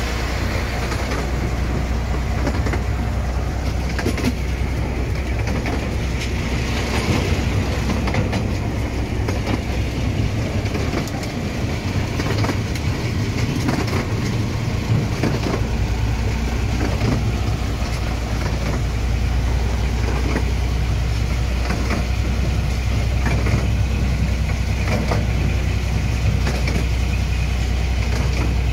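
Miniature railway train on the move, heard from an open carriage behind a small diesel locomotive: a steady low rumble of engine and wheels on the track, with scattered short clicks. The low rumble eases for a few seconds midway.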